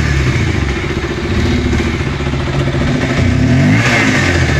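Motorcycle engine idling, revved up briefly about four seconds in, played as a sound test of the bike's exhaust.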